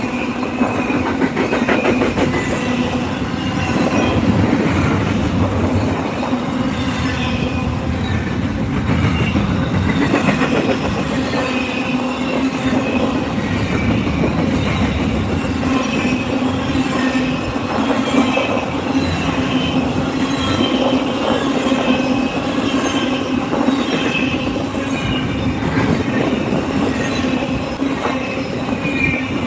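Double-stack container freight train rolling past close by: a steady rumble and clatter of steel wheels on the rails, with wavering high squeals from the wheels.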